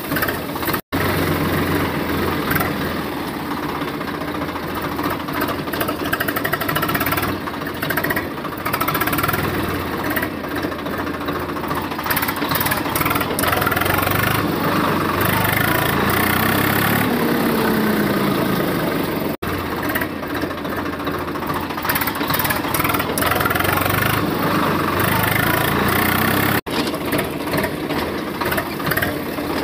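Tractor engine running steadily with a knocking chug. It cuts out for an instant three times: about a second in, around the middle, and near the end.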